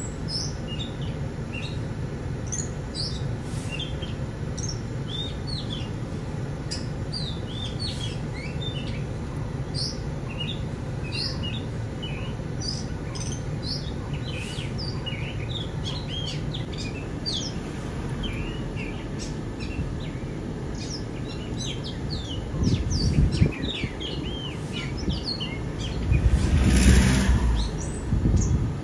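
Many small birds chirping and tweeting in quick short calls, over a steady low rumble. Near the end a louder rush of noise swells up and falls away.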